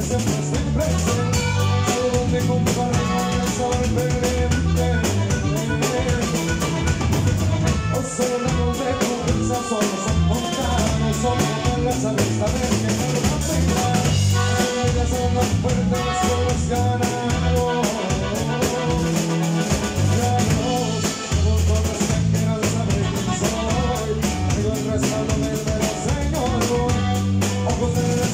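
Live band playing a song, with a drum kit keeping a steady beat under guitar and a moving bass line.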